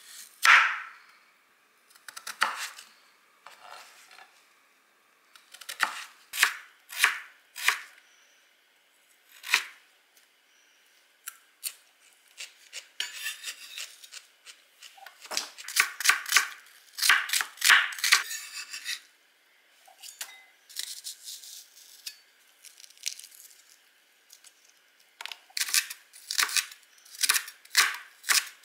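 Chef's knife cutting a Korean radish on a cutting board: one loud cut about half a second in, then scattered strokes and runs of quick chopping as the radish is sliced into thin sticks, busiest in the middle and near the end.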